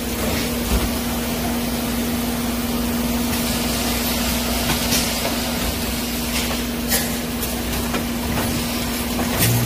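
Multi-point steel grating welding machine running: a steady electrical hum with a hiss over it, broken by a few sharp clicks or knocks, about one second in, near five and seven seconds, and near the end.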